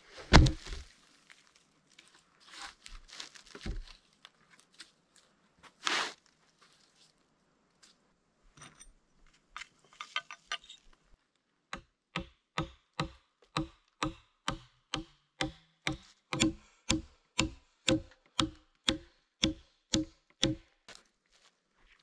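A tool striking wood: a few scattered knocks and cracks, then, about twelve seconds in, a steady run of sharp wooden strikes at roughly three a second that stops shortly before the end.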